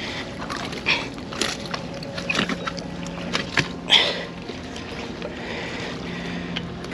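Water splashing at the edge of a rock jetty as a hooked fish is scooped into a landing net and lifted out, with scattered knocks and splashes and a faint steady hum in the middle.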